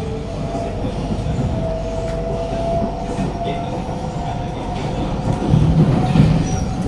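Inside a Kawasaki–CSR Qingdao Sifang C151A metro train running between stations: a steady motor whine over the rumble of wheels on the rails. The rumble grows louder about five and a half seconds in.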